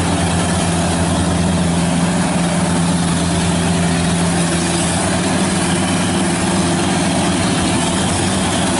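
Yamah DC-105 Plus rice combine harvester running under load while it cuts and threshes rice: a steady low engine hum under a constant noisy wash from the working machinery.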